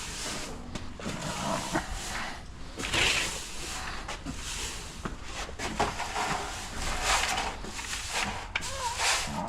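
Broom sweeping the chicken coop floor: repeated scratchy strokes of uneven strength, with a few light knocks between them.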